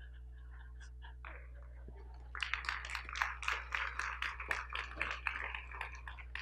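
Congregation clapping in scattered, irregular applause that starts about two and a half seconds in and continues.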